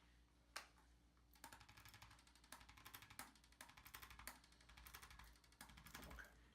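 Hand-held chiropractic adjusting instrument clicking rapidly as it taps against the patient's joints, to vibrate them and break up adhesions around them. One click comes first, then a fast run of clicks for about four and a half seconds, stopping shortly before the end.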